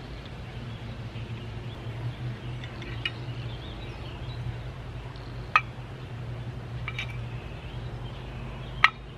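Metal parts of a cast-iron boiler water-level float control clinking as they are handled and fitted back together: four sharp clinks, spaced a second or two apart, over a steady low hum.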